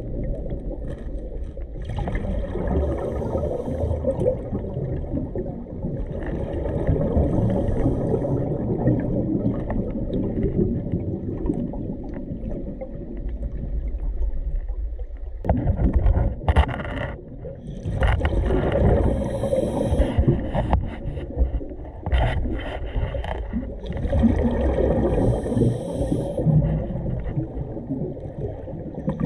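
Scuba diver breathing through a regulator underwater: bubbly exhalations come every five or six seconds over a steady low underwater rumble. A few sharp knocks fall around the middle.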